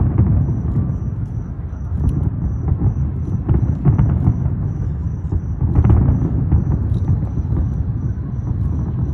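Aerial fireworks shells bursting: a string of deep booms that rumble into one another, with a sharp bang right at the start and more about two, four and six seconds in.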